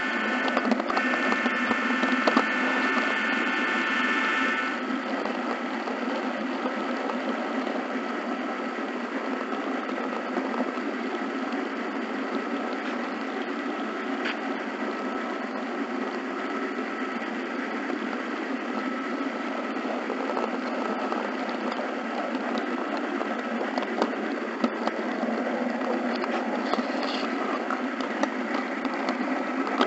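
HO scale model train running along the layout's track: a steady mechanical whir and rattle of the model's motor and wheels, with scattered small clicks. A held multi-note tone sounds over it for the first four seconds or so, then cuts off.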